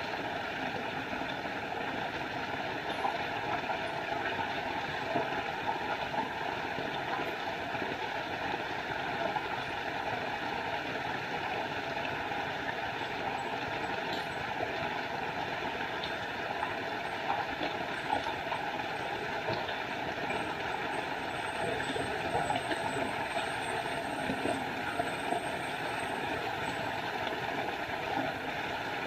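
Small forest waterfall: water falling and splashing in a steady, unbroken rush.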